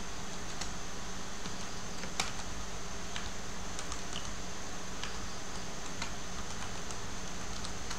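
Computer keyboard keystrokes clicking, scattered and irregular, with one sharper click about two seconds in, over a steady background hiss and low hum.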